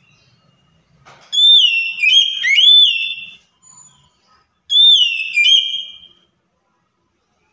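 Oriental magpie-robin singing: two loud phrases of clear whistled notes that glide up and down, the first starting about a second in and the second about five seconds in.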